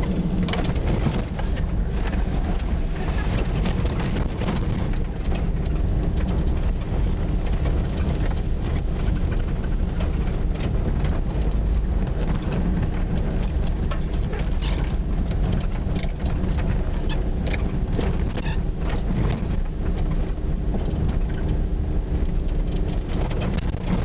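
Four-wheel drive travelling along a rough dirt track, heard from inside the cabin: steady low engine and tyre rumble with scattered knocks and rattles as it goes over bumps, a couple of sharper ones past the middle.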